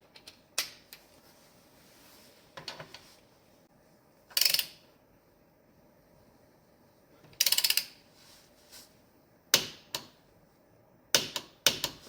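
Ratcheting torque wrench being set and worked on the front axle, giving short bursts of rapid ratchet clicks and a few single sharp metal clicks.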